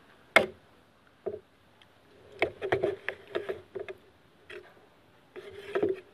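A table knife cutting boiled pork belly on a plate, the blade clicking and scraping against the plate: one sharp click just under half a second in, then bursts of clicks and scraping in the middle and near the end.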